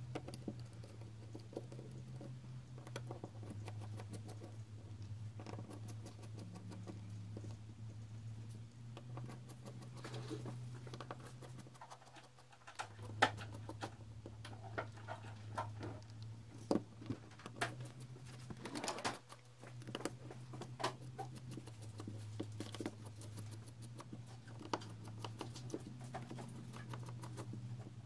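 Light, irregular clicks, taps and scratches of small hand tools working on a smartphone's parts, over a steady low hum.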